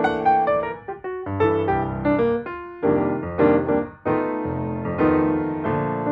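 Background piano music: a melody of separate notes over held chords.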